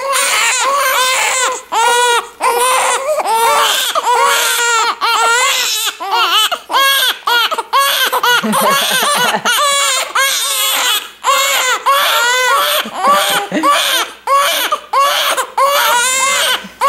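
Two newborn babies crying together, loud overlapping cries that rise and fall in pitch, broken by short gasps for breath: hunger crying. The crying cuts off abruptly at the very end.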